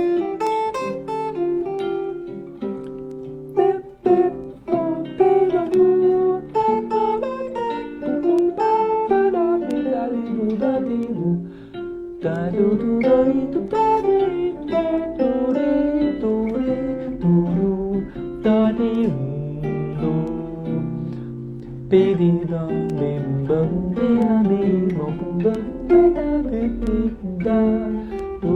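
Guitar improvising flowing single-note melodic lines and chord fragments over a backing track.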